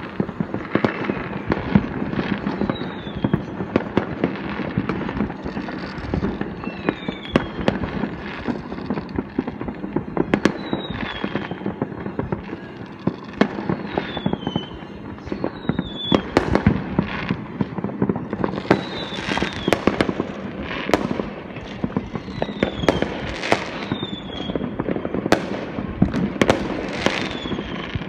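Many fireworks going off across the neighbourhood at once: a continuous crackle with frequent sharp bangs, and short falling whistles every couple of seconds.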